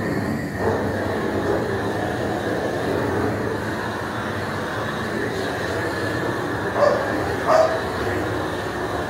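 A dog barking twice, in quick succession, about seven seconds in, over a steady rushing noise.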